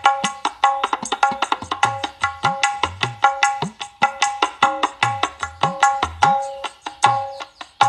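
Percussion-heavy music with fast hand-drum strokes and deep drum notes that bend upward in pitch, played through a 6-inch midrange speaker driver with a 33 µF 250 V electrolytic capacitor wired in parallel, which the owner says gives it a thick midrange.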